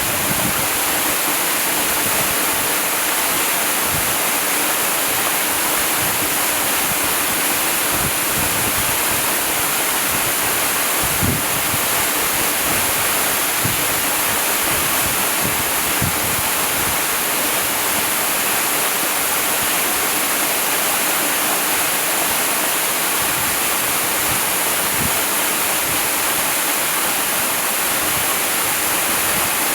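Waterfall: a steady, unbroken rush of falling water, with a few brief low thuds in the flow.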